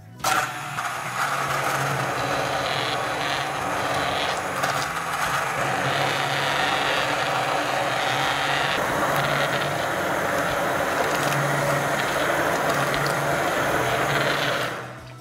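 Immersion (stick) blender running in a pot of cooked chickpeas, carrots and broth, puréeing the chunks into a smooth soup. It starts abruptly, runs steadily with a low motor hum under the churning, and cuts off near the end.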